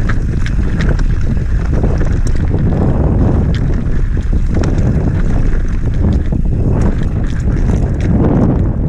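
Wind buffeting the microphone over the steady rumble of an enduro mountain bike's tyres rolling fast down a dirt trail, with frequent small clicks and rattles from the bike.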